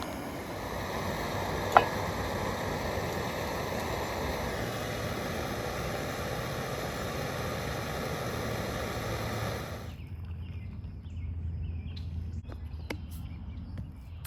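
Steady rushing outdoor noise with a single sharp click about two seconds in. About ten seconds in it cuts off abruptly to a quieter background with scattered light clicks and taps.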